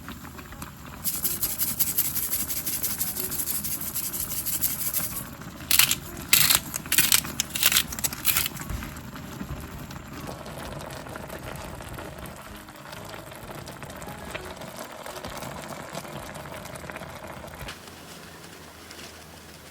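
Kitchen cooking sounds while instant noodles are prepared: a steady hiss lasting about four seconds, then a quick run of short loud noisy strokes, then a quieter steady noise with a faint hum that fades out near the end.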